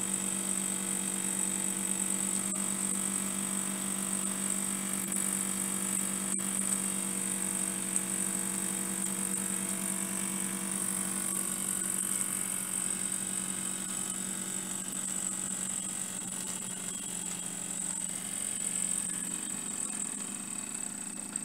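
Scratch-built vertical oscillating-cylinder (wobbler) model steam engine running at speed, a steady mechanical hum with a high hiss of steam. The hum weakens a little over the last few seconds.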